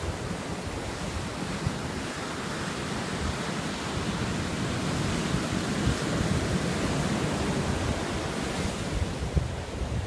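Ocean surf breaking and washing up a sandy beach in a steady rush, with wind gusting on the microphone.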